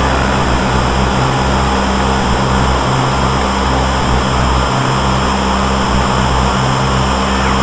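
DIY synthesizer noise-and-drone jam: a steady wash of hiss over low droning tones that step on and off in irregular blocks, processed through delay, reverb and a low-pass filter.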